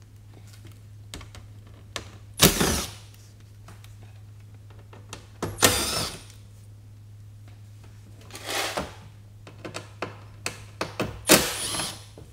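Cordless drill/driver with a Torx bit spinning in four short whirring bursts, about half a second each, backing out the screws that hold a car's plastic undertray on. Light clicks and taps come between the bursts.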